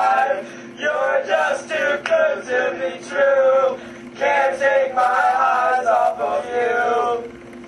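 Group of young men chanting together in loud phrases with short breaks, over a steady low hum; the voices fade near the end.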